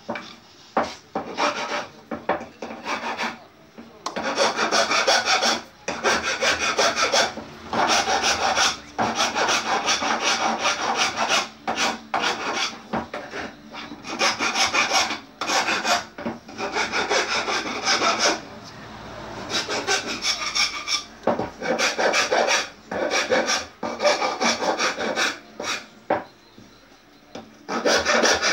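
Wood being shaped by hand with an abrasive hand tool: repeated scraping strokes across a curved wooden piece, coming in runs with short pauses between them.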